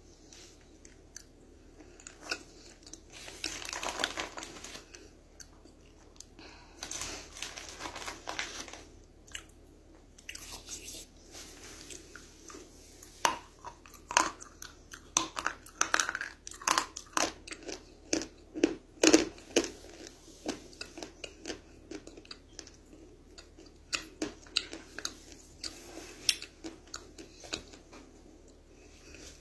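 Edible clay being bitten and chewed close to the microphone: irregular crisp crunches and small clicks, sparse at first and coming thick and fast through the second half.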